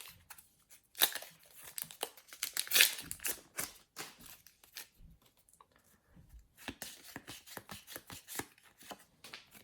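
Foil trading-card packet being torn open, with crinkling of the wrapper in two rustling bursts. This is followed by a run of light clicks as the cards are handled.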